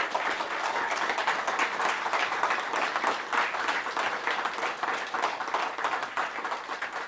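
Audience applauding at the close of a talk: many people clapping steadily together.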